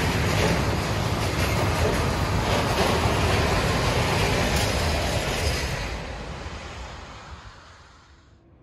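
Freight wagons (tank cars, then a covered hopper wagon) rolling past close by: a steady loud rumble of wheels on rail with faint clicks at the rail joints. The noise fades away over the last three seconds.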